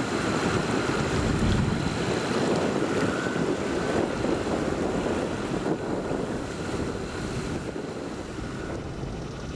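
Boeing 747-400 freighter's four jet engines on the runway: a steady low rumbling jet noise with faint high whining tones that fade out about halfway, the whole sound slowly getting quieter. Wind buffets the microphone.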